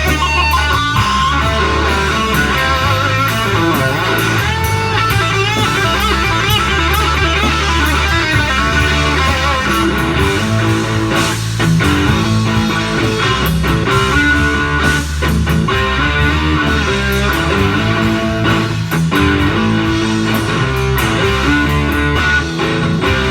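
Live rock band playing loud, with electric guitar over a heavy, steady low beat, in a rough audience recording of a concert.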